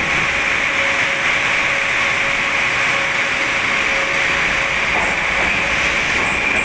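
Moskva-2020 metro train pulling away from the platform and gathering speed, a steady running noise of the train in an underground station.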